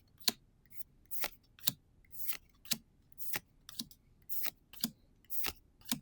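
Trading cards slid one at a time across a stack in the hand, each a short sharp swish, about two a second.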